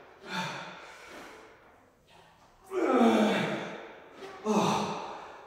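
A man's heavy, voiced exhalations of effort as he lifts dumbbells, three in a row, each falling in pitch and tailing off. The loudest is near the middle.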